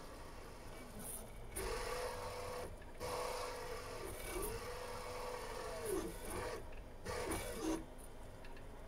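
FDM 3D printer's stepper motors whining as the print head moves along the part, the pitch sweeping up, holding and sweeping down with each move. There are three main stretches of movement, about a second and a half in, at three seconds and near seven seconds, with quieter running between them.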